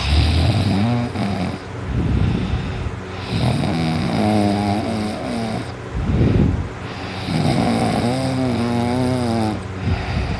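A sleeping person snoring heavily: three long snores about four seconds apart, each a pitched drone that wavers up and down, with a short noisy breath between two of them.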